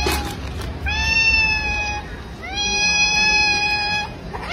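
Domestic cat meowing twice: two long, drawn-out meows of about a second and a half each, each rising briefly at the start and then held on an even pitch.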